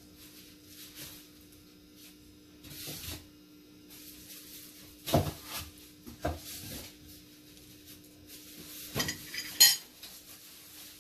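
A metal spoon clinking and scraping as it scoops lumpia filling and spreads it on the wrapper, with a few sharp knocks, the loudest near the end.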